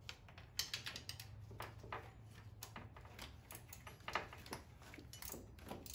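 Hand ratchet and wrench clicking and clinking irregularly while loosening intake manifold bolts, over a steady low hum.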